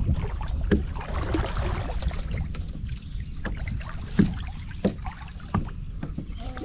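Wind rumbling on the microphone, with a spinning reel being cranked and a few sharp knocks and splashes as a small catfish is reeled to a kayak and lifted from the water. The loudest knock comes about four seconds in.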